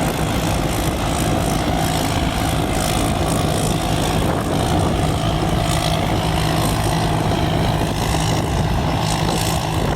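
Combine harvester working a rice field: its engine runs at a constant speed with a steady hum under a wide noisy wash of machinery, with no change in pitch or level.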